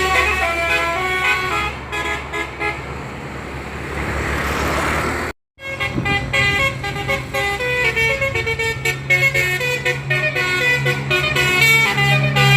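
Bus 'telolet' multi-tone horn playing a quick stepping tune over a running engine. After about two seconds the tune gives way to a few seconds of hiss, the sound cuts out for a moment just after five seconds in, and then the horn tune starts again.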